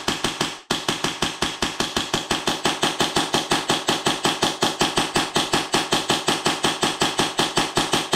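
Custom Tokyo Marui Hi-Capa 2011 gas blowback airsoft pistol run on HPA at 100 PSI, firing a long, even string of shots, about five a second, with a brief pause just after the start. It cycles and feeds without a hitch.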